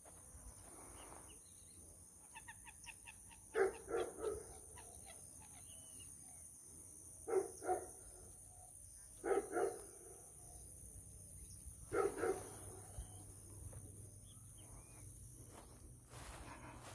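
A dog barking in four short bouts of two or three barks each, spaced a few seconds apart.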